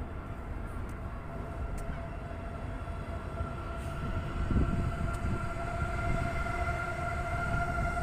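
Istanbul metro train on the bridge line: a low rumble with a steady electric whine that grows louder through the second half as the train comes closer.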